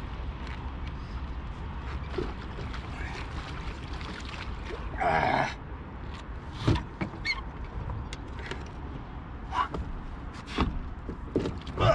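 Handling noise in a small fishing boat: a steady low rumble, one short louder rush of noise about five seconds in, then scattered knocks and thuds against the hull, the sharpest near the end.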